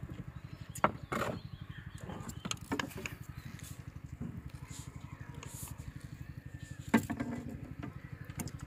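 A small engine running steadily with a fast low putter, under sharp knocks and clatter from a plastic bowl and tub being handled on a wooden boat deck. The loudest knocks come about a second in and again near the end.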